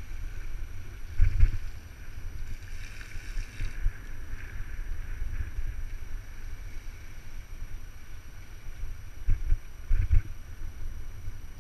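Wind buffeting a bike-mounted action camera's microphone while riding, with the hiss of tyres on wet pavement and a few heavier thumps, one about a second in and two near the end.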